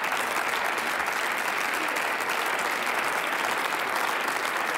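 Parliamentary audience applauding steadily: many pairs of hands clapping in a large chamber.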